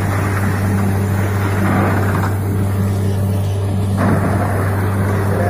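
Borewell drilling rig running: a steady engine hum under the loud rush of compressed air and water blowing out of the bore, the sign that the bore has struck water. The rushing eases for a couple of seconds midway and comes back suddenly about four seconds in.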